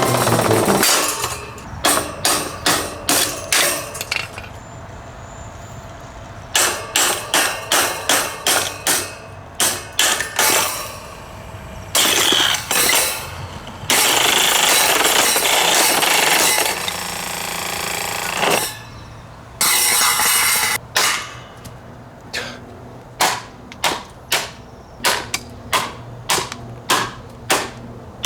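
Vintage Sanyo 16-inch table fan being smashed: runs of hard blows about two a second, with a few longer stretches of crunching, breaking noise between them.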